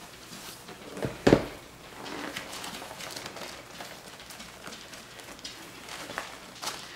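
Swatches in an upholstery fabric sample book being flipped and handled: soft rustling and flapping with light clicks, and a thump about a second in.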